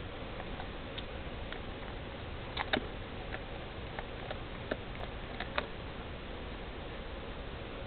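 Basset hound gnawing a chew bone, her teeth giving scattered short clicks and cracks, loudest a little after two and a half seconds in.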